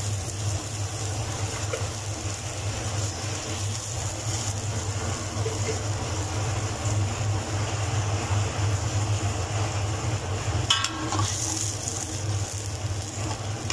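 Blended chili paste sizzling steadily as it fries in oil in a wok, over a steady low hum. Near the end a metal spatula scrapes and stirs through it.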